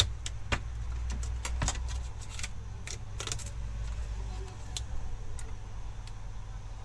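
Scattered small clicks, taps and light rattles of plastic and metal parts being handled inside an open desktop PC case, over a steady low hum.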